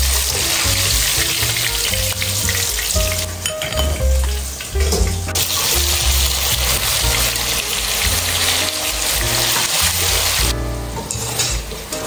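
Hot oil sizzling steadily as battered chicken pieces fry in a wok; the sizzle thins out twice for a second or two. Background music with low bass notes plays underneath.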